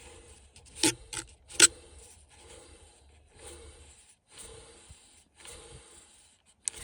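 Old blower motor from a 2011 Dodge Ram being turned over out of the truck, its fan scraping and grinding in faint strokes about once a second after two sharp clicks about a second in. The grinding is the noise the owner takes to be the cause of his heater's blower trouble.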